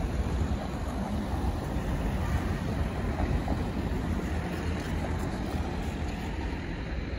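Road traffic in a city street, with cars and a van passing close by, and a low rumble of wind on the microphone.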